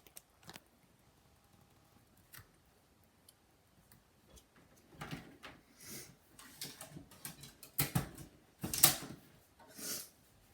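Scattered clicks and taps of a laptop being handled and its keys pressed, with a few louder rustling thumps in the second half.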